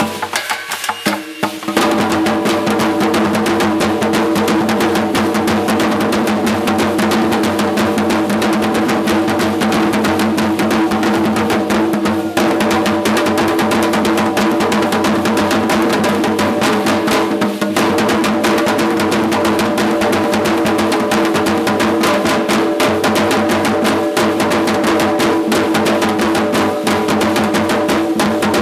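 Continuous rapid drumming accompanying an Aztec Conchero dance, filling out and getting louder about two seconds in, with a steady sustained tone running underneath.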